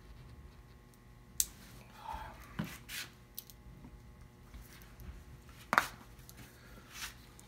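Scattered sharp taps and knocks of objects being handled and set down on a wooden workbench, a few seconds apart, the loudest near the end.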